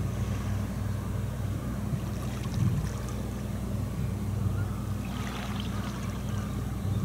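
A low, steady engine hum, with faint scattered higher sounds about five seconds in.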